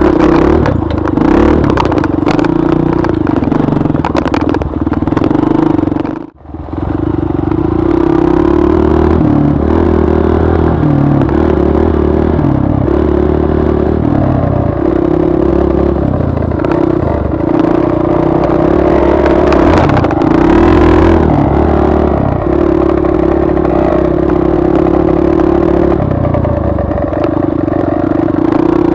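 Dirt bike engine running on a trail ride, the throttle opening and closing, with knocks and rattles from the bike over rough ground. The sound drops out suddenly for a moment about six seconds in.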